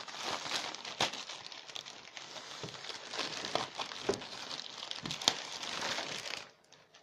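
Parcel packaging being opened and handled: continuous crinkling and rustling with sharp crackles, which dies down about six and a half seconds in.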